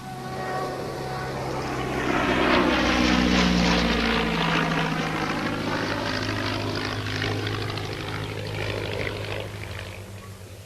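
A propeller-driven piston-engined aircraft flying past. The engine drone swells to its loudest about three seconds in, then slowly fades away.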